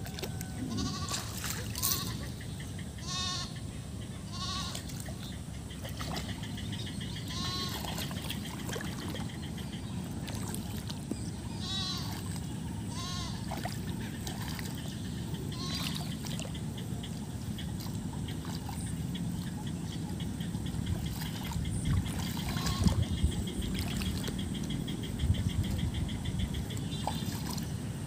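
Livestock bleating: short wavering calls repeated many times, most of them in the first half. Later, hands slosh and splash in flooded paddy mud.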